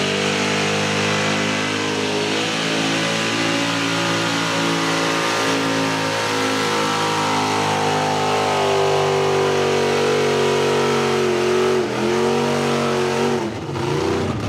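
Mega truck engine running hard at high revs, a loud steady drone with a brief dip about twelve seconds in and the revs falling away near the end.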